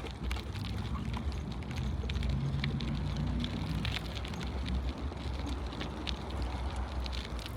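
Noise of a bicycle ride: a low rumble of wind buffeting the microphone, with scattered crackling ticks from the ride. A faint low hum comes in about two seconds in and fades by four seconds.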